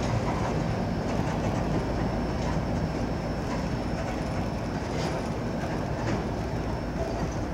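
Norfolk Southern freight train rolling past at steady speed: a continuous rumble of the cars, with scattered wheel clicks over the rail joints.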